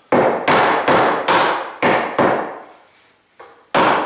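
Hammer blows on wood: six quick strikes in about two seconds, a pause, then one more near the end, knocking a tight-fitting workbench rail into place.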